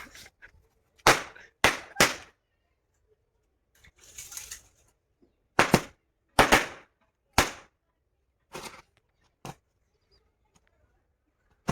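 A packet of fireworks burning in a fire, going off one by one as a string of sharp pops at irregular intervals, about eight in all, with a short hiss about four seconds in.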